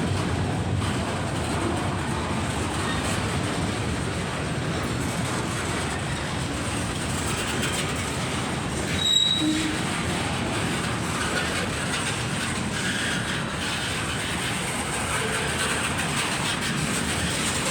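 Loaded freight train cars rolling past close by: a steady rumble and rattle of wheels on the rails, with a brief high wheel squeal about halfway through.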